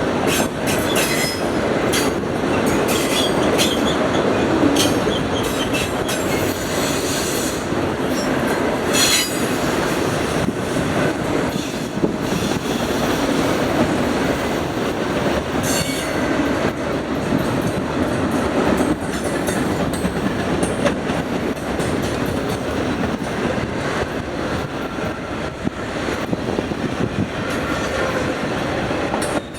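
Freight train cars rolling past: a steady rumble of steel wheels on rail, with repeated clacking and brief high wheel squeals throughout.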